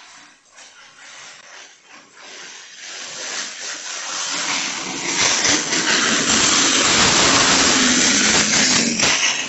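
A car speeding along the street: a rush of engine and tyre noise that builds over several seconds, stays loud, then drops off sharply about nine seconds in.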